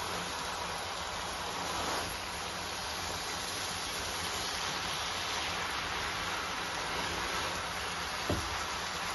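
Stir fry of noodles, chicken and vegetables sizzling steadily in a hot wok-style frying pan while it is tossed with a slotted spatula, with one short knock near the end.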